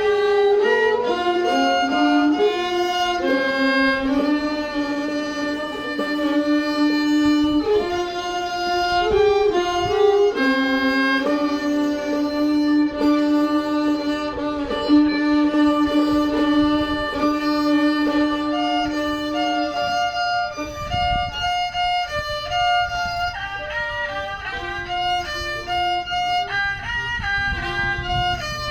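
A bowed fiddle playing a melody of long held notes, with a strong lower line beneath that drops away about twenty seconds in, leaving higher, shorter notes.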